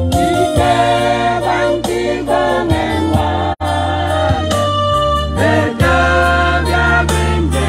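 A choir of mixed voices singing a hymn-like song, accompanied by an electronic keyboard with steady held bass notes. The sound cuts out for a split second about halfway through.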